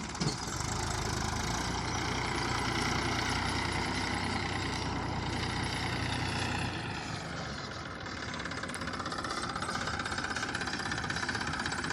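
Diesel engine of heavy machinery running steadily. Its low rumble eases about seven seconds in.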